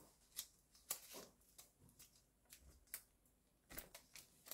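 Faint rustling of colored origami paper being folded and creased by hand, with a handful of short crisp crinkles scattered through.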